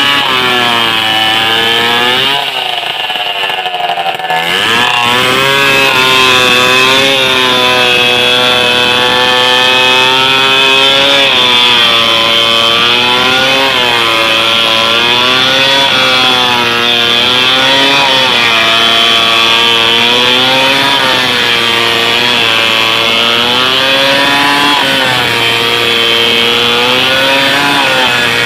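Stihl 070 two-stroke chainsaw running at high speed while sawing a large tree, its pitch rising and falling as the chain bites into the wood. About three seconds in the engine drops in speed briefly, then revs back up.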